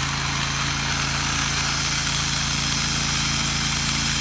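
Small gasoline engine of a pressure-washing rig running steadily, with a constant hiss of low-pressure spray as cleaning solution is applied to the house.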